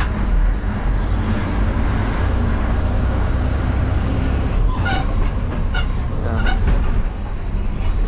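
Inside a moving bus: the engine running with a heavy low rumble and road noise, steady throughout. A few brief higher-pitched calls or tones sound about five to six and a half seconds in.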